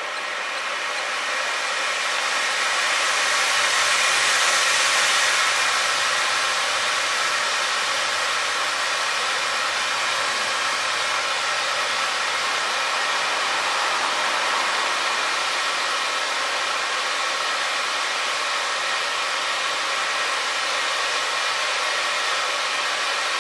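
Gold stage fountain firework burning with a steady hiss of spraying sparks. The hiss swells over the first few seconds, then holds level.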